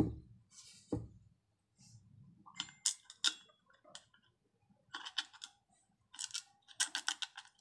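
Compression driver's diaphragm assembly being handled and seated on its metal housing: a knock at the start and another about a second in, then several clusters of light metallic clicks and scrapes as the parts are turned and fitted together.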